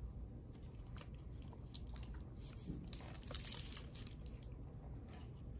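Double-sided tape being drawn off its roll and pressed down along a laptop's metal edge with nitrile-gloved fingers: faint crackling and crinkling ticks, busiest around the middle, over a steady low hum.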